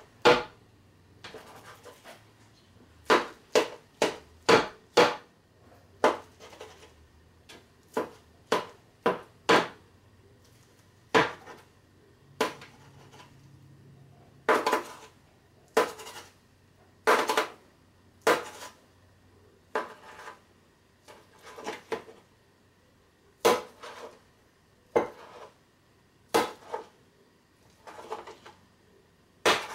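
A plastic knife knocking against a speckled enamel roasting pan as raw meatloaf is scored into slices: sharp knocks, sometimes three or four in quick succession, sometimes a second or more apart.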